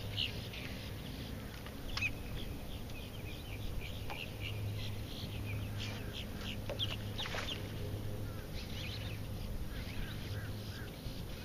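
Water birds clucking and calling again and again in short, separate notes, with a low hum underneath that drops out now and then.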